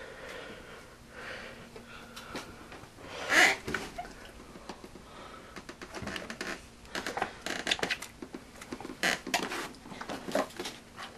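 Scattered clicks, knocks and rustling from things being handled and moved about, with a louder rustle about three and a half seconds in and a quicker run of taps and clicks in the second half.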